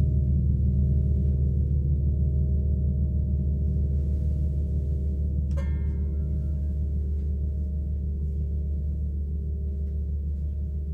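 Large gong ringing on after a soft-mallet stroke: a deep hum with a shimmer of overtones, slowly fading. About halfway through, a brief light metallic ping rings out and dies away.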